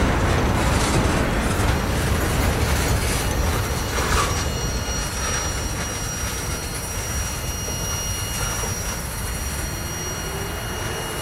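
Freight train cars rolling past on the rails, a steady rumble with thin high-pitched wheel squeal, gradually getting quieter as the train passes.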